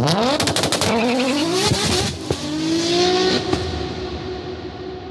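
Car engine revving hard, its pitch climbing in two or three rises with a burst of crackles as it first climbs, then levelling off and fading out.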